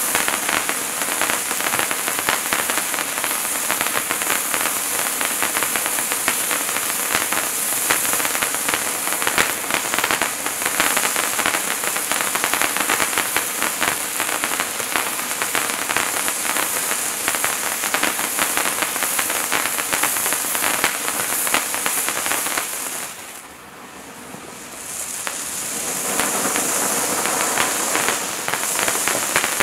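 Hand-held sparkler fountain firework (Wizards Wand) burning: a steady spray of sparks with a dense crackle over it. Near the end it dies away for about two seconds, then starts up again.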